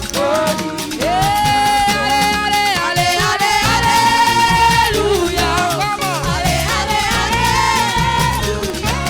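Gospel choir singing an upbeat praise song with a band, long held notes over bass and percussion.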